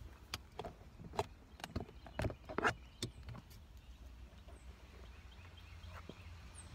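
Handling noise: a quick run of clicks and knocks as a phone is moved about inside a parked car, over a low steady rumble. The knocks stop about three and a half seconds in.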